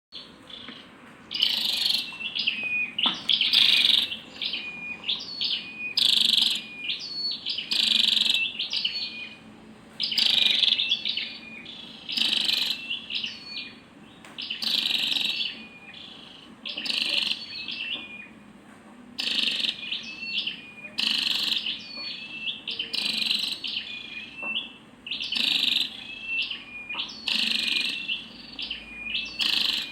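Female flowerpecker (chim sâu đầu đỏ) calling in a steady series of quick, high chirping bursts, each about a second long, repeated every one to two seconds.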